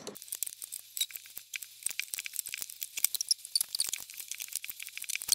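Small rubber bands being stretched onto the plastic pegs of a band loom: a rapid, irregular run of light clicks and ticks.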